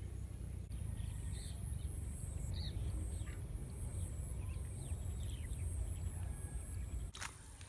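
Wind rumbling on the microphone, with faint short bird chirps and a steady high-pitched whine over it. Near the end a click cuts the wind noise off.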